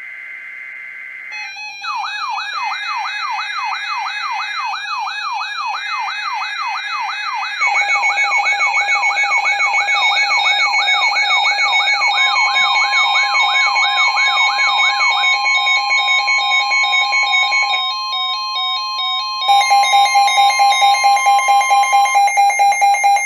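Layered electronic alarm tones building up: a steady high beep, then a fast wailing siren sweep of about two to three cycles a second, then pulsing alternating tones and a long steady tone join in. Everything grows louder in steps, with the pulsing tones loudest near the end.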